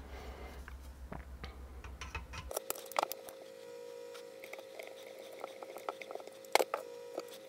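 Light clicks and taps of small rifle parts being handled: a screw, the magazine tube and the handguard fitted back on, with a sharper click about six and a half seconds in.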